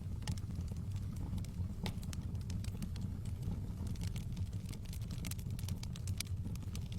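Wood bonfire crackling: frequent, irregular sharp pops and snaps over a steady low rumble.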